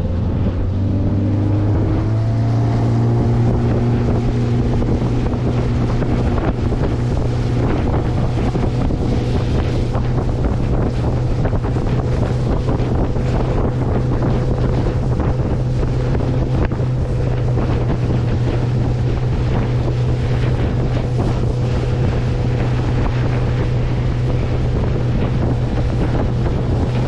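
The outboard motor of a 17-foot Bass Tracker bass boat speeds up, its pitch rising over the first couple of seconds, then runs steadily at cruising speed. Wind buffets the microphone throughout.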